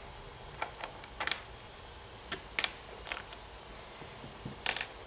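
Small plastic toy figures and accessories being handled and set down on a wooden tabletop: a scatter of light clicks and taps, some in quick pairs.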